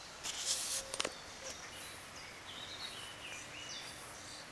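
Small birds chirping with short high notes, a few of them falling in pitch, over a steady outdoor hum. Near the start there is a short burst of hiss and a sharp click about a second in.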